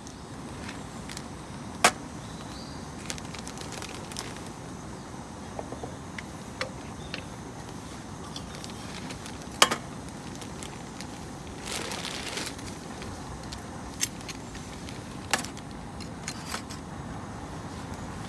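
Steady hiss of rain, with a few sharp clicks and clinks scattered through it, the loudest about two seconds and ten seconds in.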